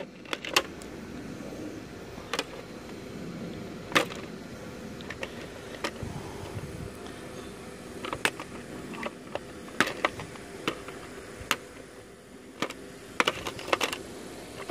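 Side cutters snipping refrigerator copper wiring: sharp clicks at irregular intervals, roughly one every second or so, with a few coming close together near the end.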